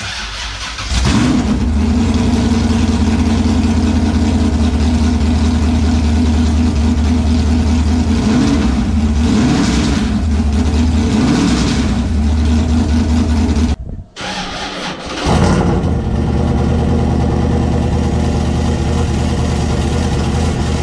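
LS6 V8 running through open headers with no muffler and no turbo. It catches about a second in, idles with a harsh, hollow straight-pipe note and is blipped a couple of times. The sound drops out briefly about two-thirds of the way through, then comes back with a rev.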